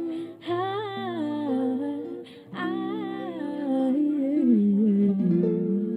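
Live music: a wordless vocal line, hummed and sung in gliding, ornamented phrases with two short breaths, over acoustic guitar. The voice settles onto a held lower note near the end.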